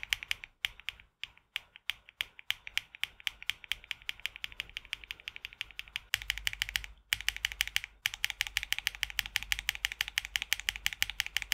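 Mechanical keyboard with HMX Sunset Gleam switches (polycarbonate top housing, glass-fibre-reinforced PA66 bottom housing) being typed on quickly: a steady run of clacky, loud, crisp keystrokes. The typing pauses for about a second some seven seconds in, then resumes faster.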